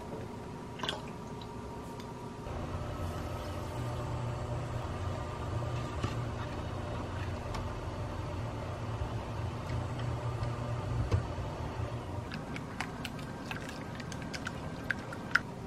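Steady low hum from an induction cooktop as milk and cream heat in a saucepan. Then, about 12 seconds in, a wire whisk clicks rapidly against a glass mixing bowl as the hot milk is poured in and whisked into beaten eggs, with a couple of sharper clinks near the end.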